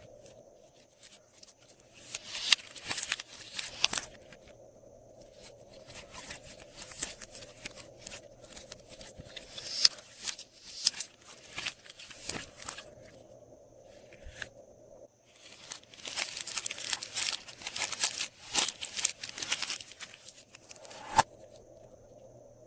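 Glossy slime being squeezed and worked in plastic piping bags: close, sticky crackling and popping with crinkling plastic, in three long stretches and a single sharp click near the end.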